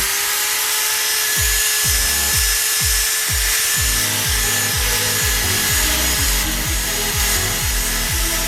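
Wire brush on a cordless drill scouring a cast iron grill pan: a steady, harsh scraping with the drill motor's whine held at one pitch underneath.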